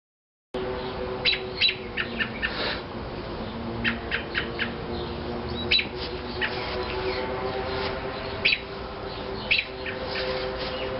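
Birds chirping in short scattered calls, over a steady low hum.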